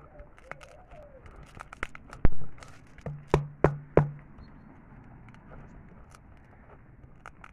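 Plastic soda bottle holding half-frozen slush being squeezed and handled on a wooden stump: crackling clicks of the plastic, a louder knock about two seconds in, then three sharp clicks in quick succession.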